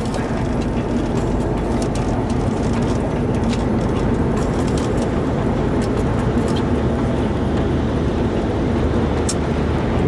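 Steady drone of a semi-truck's diesel engine and road noise, heard from inside the cab while cruising on the motorway.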